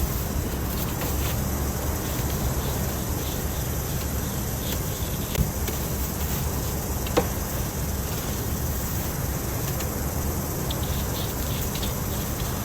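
Steady low rumble of a car driving on a snow-covered road, heard from inside the cabin, with a constant hiss above it and a few faint clicks.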